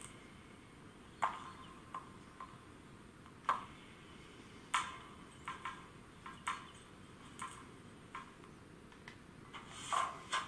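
Sound module of a standing BRAWA H0-scale model of the E42 electric locomotive, making about a dozen short clicks and brief hisses at uneven intervals, with a cluster near the end.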